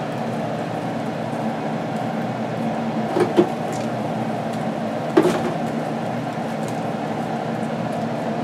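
Steady hum of a kitchen appliance or fan, with a few sharp light clicks, twice a little past three seconds in and once just after five seconds, as tater tots are set by hand into a glass casserole dish.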